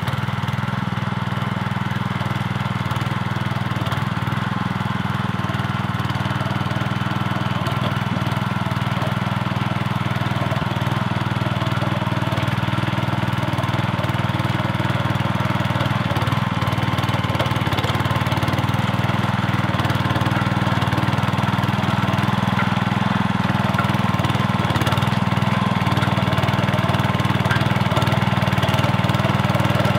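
Rototiller's Honda 200cc single-cylinder engine running steadily under load while the tiller works through garden soil.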